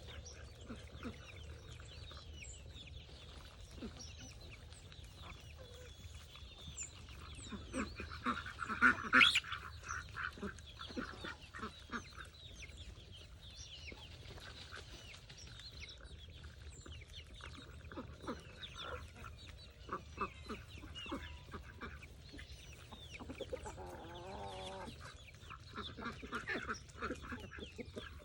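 Farm poultry calling: many short, overlapping calls throughout, loudest in a cluster about eight to nine seconds in, with a longer wavering call near the end.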